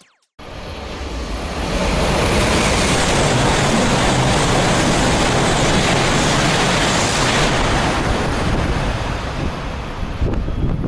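Tohoku Shinkansen train passing non-stop through a station at high speed: a loud rushing noise of air and wheels that builds over about two seconds and holds steady. The hiss drops away about three-quarters of the way through as the train clears, and the noise tapers off near the end.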